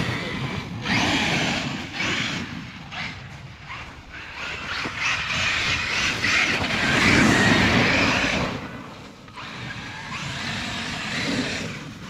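Traxxas X-Maxx 8S RC monster truck driving over snow: its brushless electric motor and drivetrain whirring and its tyres churning snow, rising and falling in loudness with the throttle and loudest about two-thirds of the way through.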